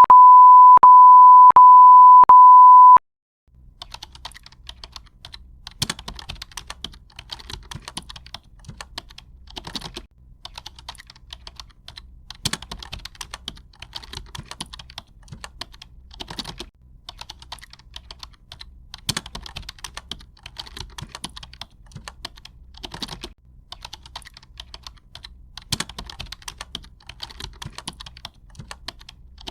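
A steady high beep tone, broken by short gaps, runs for about the first three seconds and then stops. After that comes a continuous patter of light clicks, like typing on a computer keyboard, with a heavier key stroke every few seconds.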